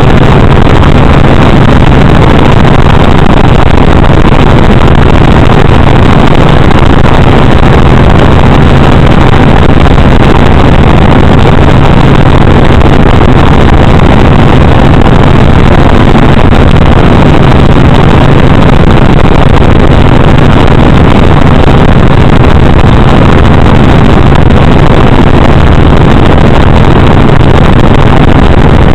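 Helicopter in steady flight, heard from inside the cabin: a very loud, unbroken rotor and engine noise with a strong low hum under it.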